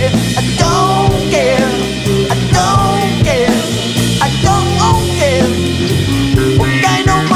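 Funk band playing a song: a steady drum beat and bass line with a singer's voice sliding over the top.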